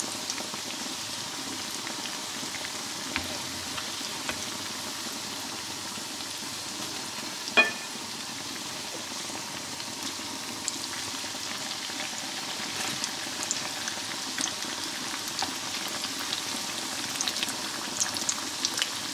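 Cottage-cheese pastries sizzling steadily in hot fat, with a continuous crackle of small pops. A single sharp clink about seven and a half seconds in.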